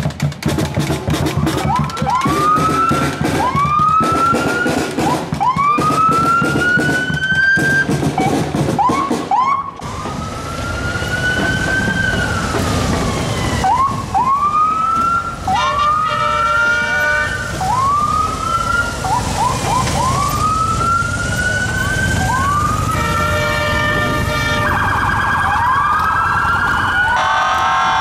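Police sirens sounding in short rising whoops, several overlapping and repeating every second or two. Drumbeats run under them for the first nine seconds or so, and later come bursts of a steady, buzzing horn-like siren tone.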